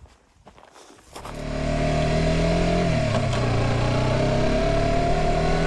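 Motorcycle engine starting up about a second in and running steadily, its pitch dipping briefly partway through and coming back up.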